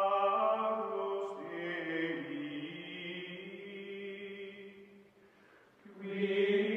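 Chanting voices in music, holding long, drawn-out notes that slide slowly in pitch; they fade almost away about five seconds in and swell back a second later.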